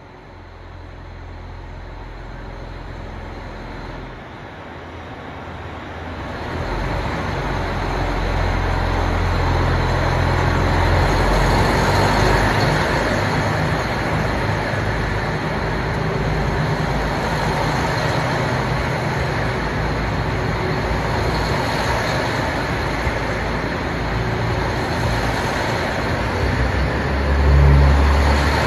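KiHa 261 series diesel train pulling out and passing close by. The low throb of its diesel engines builds over the first several seconds as it gains speed, then holds loud and steady as the cars roll past. A heavier low rumble comes near the end.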